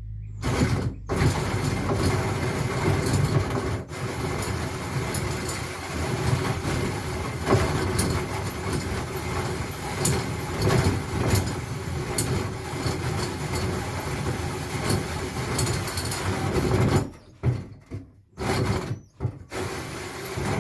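Electric drill running under light pressure as it cuts through material, for about sixteen seconds, then stopping and starting in a few short bursts near the end.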